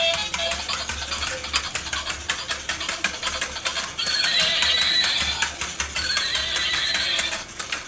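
Walking toy horse's built-in speaker playing an electronic horse whinny twice, about four and six seconds in, over the rapid clicking of its plastic walking mechanism.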